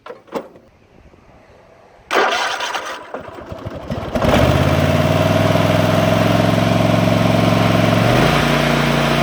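Gravely ZT34 zero-turn mower engine being started. A couple of clicks come first, then cranking from about two seconds in. The engine catches about four seconds in and runs steadily, its speed dropping a little near the end.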